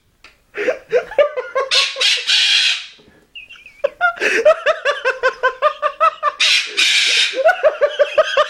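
A pet bird that mimics laughter, cackling in long runs of rapid, even ha-ha-ha laughs with breathy wheezes between the runs and a brief pause about three seconds in.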